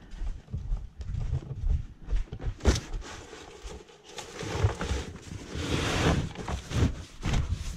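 Footsteps and handling noise, with irregular low rumbling bumps, a sharp knock about three seconds in, and a cardboard box rustling as it is shifted about six seconds in.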